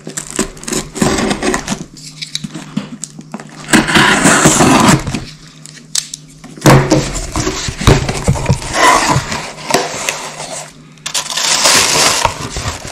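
Cardboard shipping box being opened by hand: a utility knife slitting the packing tape, the cardboard flaps being pulled open, and plastic air-pillow packing crinkling, in irregular bursts of scraping and rustling with sharp clicks and knocks.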